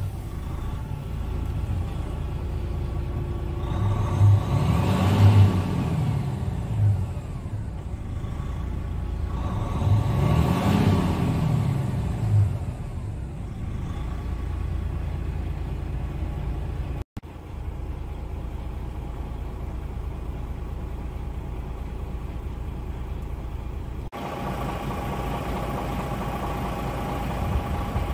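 DAF XG 480's PACCAR MX-13 inline-six diesel idling just after a start, revved twice with the pitch rising and falling each time, then settling to a steady idle.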